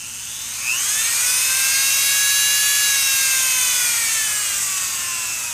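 Dremel 395 rotary tool running with a high motor whine. Its speed climbs about a second in, then slowly eases down. The motor is driving the shaft again through a newly fitted coupler.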